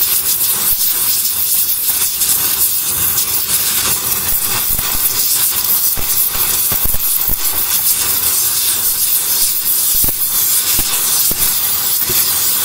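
Gas torch burning with a steady, loud hiss. Its flame is heating a creased section of a car's steel frame to red heat while the frame is held under pulling tension, so that the crease can be drawn straight.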